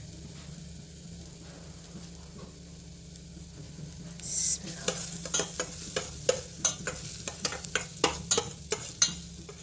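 Chopped garlic and ginger frying gently in ghee in a metal pot. About four seconds in, a metal spoon starts stirring, with many sharp clicks and scrapes against the pot.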